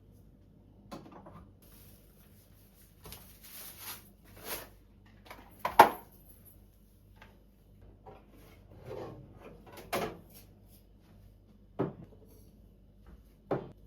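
Refrigerator being emptied: a series of separate knocks and clatters of fridge drawers and containers being pulled out and set down, the loudest about six seconds in, with a stretch of rustling in between.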